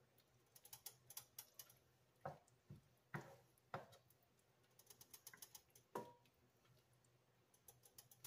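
Faint clicks and soft taps of a black plastic spatula stirring chopped Swiss chard in stock in a nonstick skillet, with a few louder knocks against the pan.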